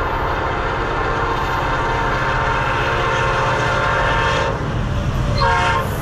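Multi-chime air horn of an EMD SD70ACe locomotive sounding a long blast. It breaks off about four and a half seconds in and starts again near the end. The low rumble of the locomotive's diesel engine working wide open runs underneath.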